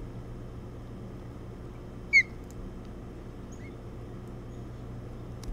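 Osprey giving one short, loud, slightly down-slurred chirp about two seconds in, with a fainter chirp a second and a half later, over a steady low hum.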